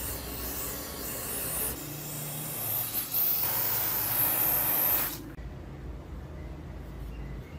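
Aerosol spray can hissing as it sprays through its straw onto a rusty steel adze head, in a few stretches, cutting off sharply about five seconds in.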